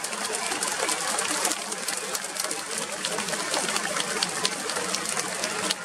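Baseball crowd in a domed stadium: a steady din of voices and cheering, with many short sharp claps or clacks scattered through it.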